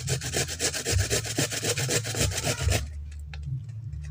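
Fresh galangal root being grated on a handheld metal grater: quick, even rasping strokes that stop about three seconds in.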